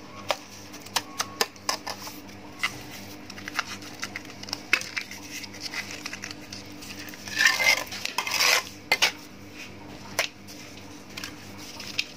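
Wet cement being packed by hand into a plastic bottle around an iron rod: irregular clicks, taps and scraping. A longer scraping, rustling stretch comes about seven to eight and a half seconds in.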